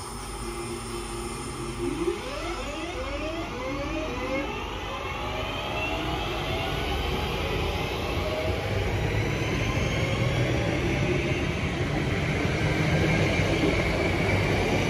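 A train running through the station: a set of rising whining tones as it picks up speed, then a steady whine over wheel and rail rumble that grows louder.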